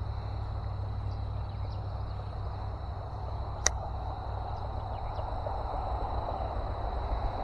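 Steady rumble of highway traffic, with one sharp click about three and a half seconds in.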